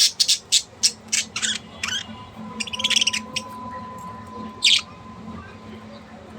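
Bird calls: a quick run of short, sharp chirps, about four a second for the first two seconds, then a denser cluster of calls about three seconds in and one more call near the end.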